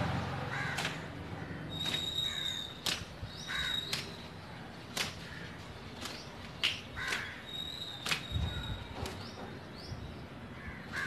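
Wet cotton towel slapped against long wet hair, a sharp slap roughly every second at an uneven pace, to beat the water out. Crows cawing in the background.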